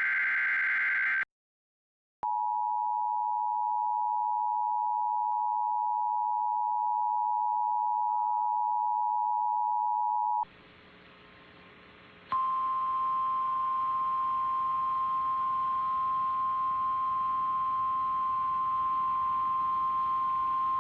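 Emergency Alert System tones on a TV broadcast. The end of a short, harsh data burst is followed by a moment of silence. Then the steady two-tone attention signal sounds for about eight seconds, and after a brief hiss a single steady alert tone sounds over faint background hiss for about nine seconds. It is the warning that an emergency message is about to be read.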